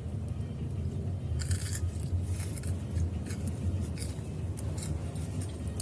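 Plastic snack packaging crinkling and rustling in several short bursts over a steady low rumble from the car.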